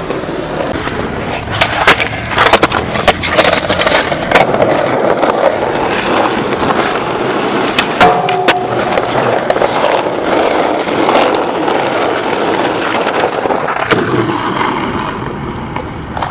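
Skateboard wheels rolling on rough asphalt, broken by several sharp clacks of the board popping and landing. About eight seconds in the board hits a curb ledge with a brief grinding scrape.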